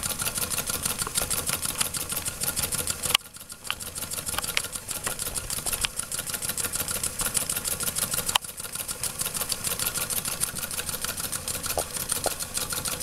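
Weeden No. 14 toy steam engine running with a rapid, even mechanical ticking. Two sharp clicks stand out, about three seconds in and again at about eight seconds.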